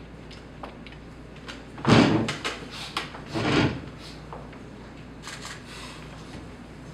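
Wooden chess pieces being set down on the board and the chess clock being pressed during a blitz game: a quick run of clicks and knocks, with two heavier thuds about two and three and a half seconds in.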